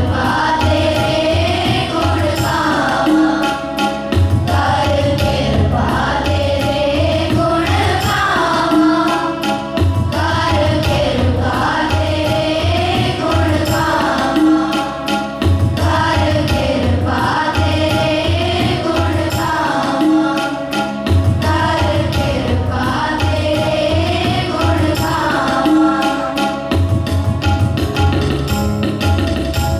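Devotional singing with tabla accompaniment: a melodic voice line over a steady held drone and a rhythmic low drum pattern.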